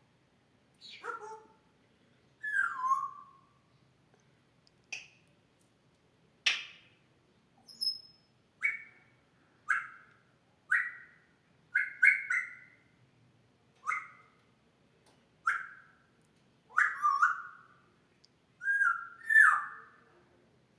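African grey parrot imitating a human cough, giving about fifteen short, sharp coughs, roughly one a second and closer together towards the end.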